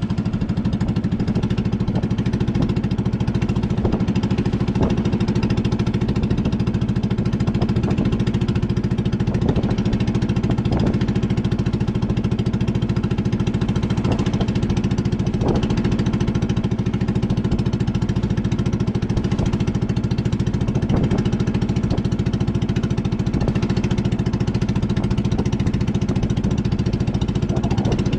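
A small boat's engine running steadily at a constant speed, close by.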